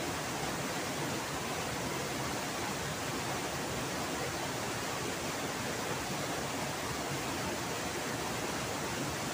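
Rushing water of a river waterfall and its fast current: a steady, even hiss with no breaks.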